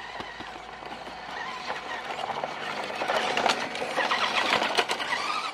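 WPL D12 RC mini truck driving on gravel: the whine of its small electric motor and gearbox, with the tyres crunching and clicking over loose stones. It grows louder after about three seconds, and the whine rises in pitch near the end.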